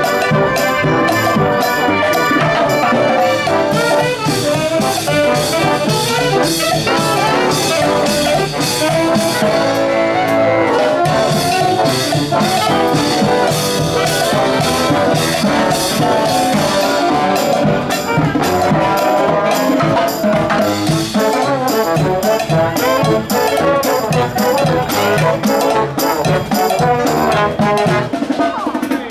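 Music led by brass instruments, trumpets and trombones, playing throughout.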